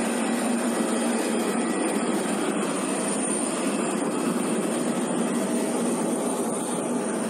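Steady whining noise of jet aircraft turbines running, an even rush with a thin high whine held above it.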